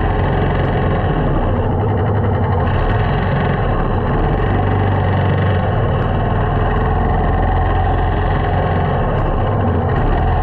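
Small motorcycle engine running steadily at low speed in dense traffic, with a constant low hum and the noise of the surrounding vehicles.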